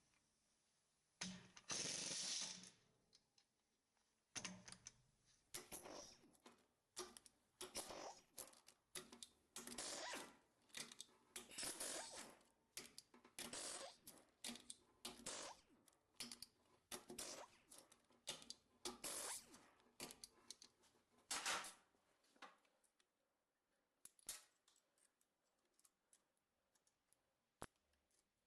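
Ratchet wrench undoing the main bearing cap bolts of a ZMZ-513 engine: a string of short clicking strokes about once a second, which stops about three-quarters of the way through, leaving only a few faint ticks.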